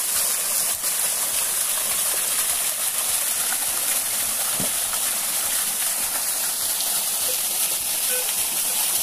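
Small waterfall pouring onto rock into a stream pool: a steady, unbroken hiss of falling water.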